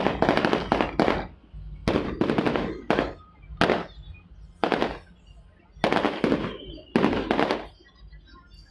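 Fireworks going off in crackling volleys: runs of rapid sharp bangs about a second apart that die away near the end.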